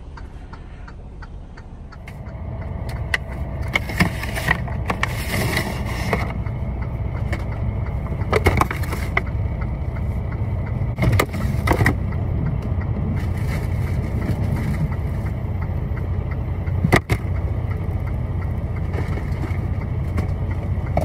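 Semi truck running with a steady low rumble that grows louder about two seconds in, with scattered clicks and knocks over it.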